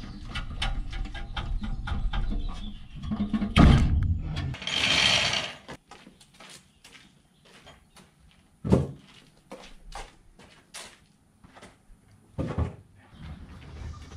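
Knocks, clunks and scraping from hands-on exhaust work under a pickup truck, as rubber hangers are worked onto the exhaust pipes, with a short hiss about five seconds in. After that it quiets to scattered clicks and a few separate thuds.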